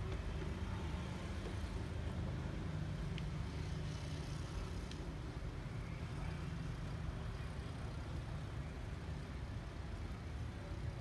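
A steady low rumble of background noise, unchanging throughout.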